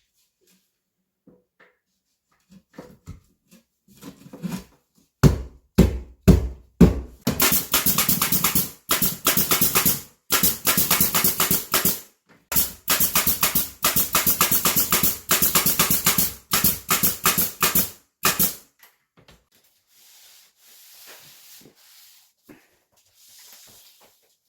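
A power screwdriver driving screws through gypsum board in a run of one- to two-second bursts with short pauses, after a few separate knocks as the board is set in place.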